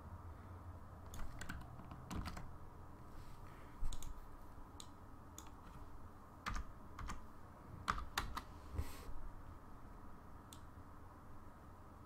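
Irregular clicks and taps of a computer keyboard and mouse, several in quick pairs, over a faint steady hum.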